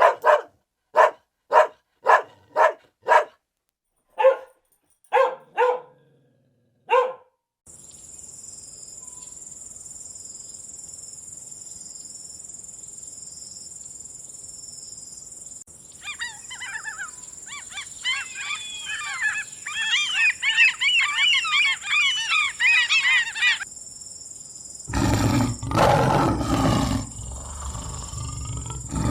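Dog barking, about ten short barks in quick succession over the first seven seconds. Then a steady hiss, with a chorus of many overlapping high chirping calls for about eight seconds. Near the end comes a loud, low, rough sound like a roar.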